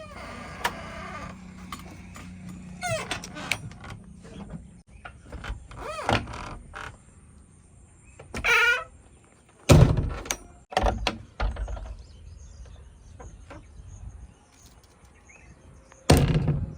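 Backhoe loader at work: the engine runs low underneath, with wavering squeals and heavy thuds, the loudest about ten seconds in and again near the end, as mud is dug and loaded.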